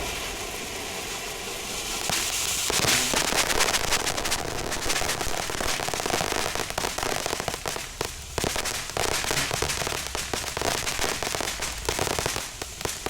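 Consumer firework fountain hissing, then breaking into dense, rapid crackling about three seconds in that keeps going with a couple of brief lulls.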